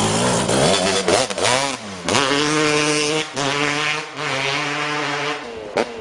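Yamaha RX100's two-stroke single-cylinder engine revving: its pitch swings up and down in quick blips during the first two seconds, then holds at steady revs with a few short dips.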